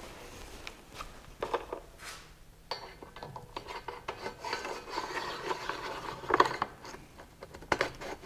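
Handling noise as a flat-panel monitor is fitted onto a 3D-printed monitor mount: plastic rubbing and scraping with scattered clicks, and two sharper knocks near the end as it seats.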